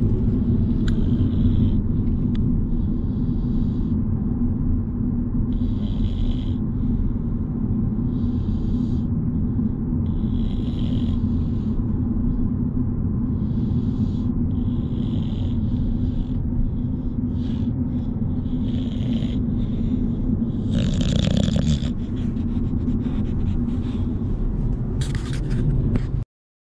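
English bulldogs snoring in the back seat of a moving car, a raspy breath every couple of seconds over the steady low rumble of road noise. The sound cuts off suddenly near the end.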